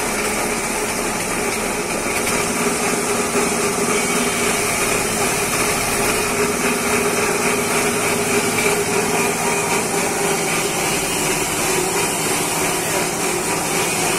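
A small engine running steadily, a constant hum with no change in speed.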